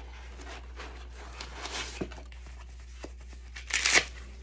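Unboxing handling noise: packaging rustling softly, a single knock about two seconds in, then a short loud crinkling rip of packaging near the end.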